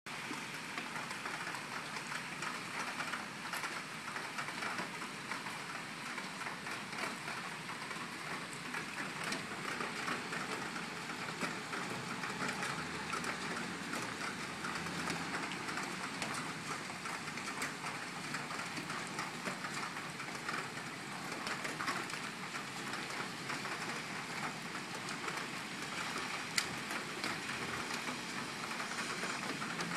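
Typhoon rain falling steadily, with many small drop ticks on nearby surfaces and one sharp click near the end.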